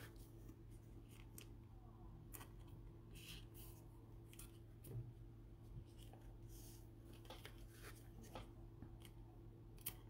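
Faint rustling and light clicks of trading cards and thin plastic card sleeves handled by gloved hands, scattered throughout, over a low steady hum.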